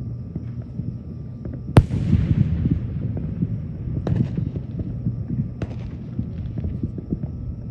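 Aerial firework shells bursting: one sharp, loud bang about two seconds in, trailing off into an echo, then two fainter bangs a second and a half apart, over a low steady rumble.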